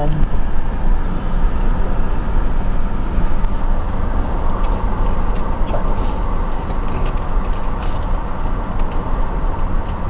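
Steady road and engine rumble heard from inside a moving car's cabin, with a few faint ticks about halfway through.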